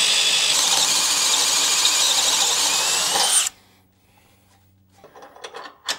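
Handheld power drill with a step bit cutting through the steel frame of a Jeep Wrangler, running steadily with a high squeal from the bit in the metal. It stops suddenly about three and a half seconds in, followed by a few faint clinks near the end.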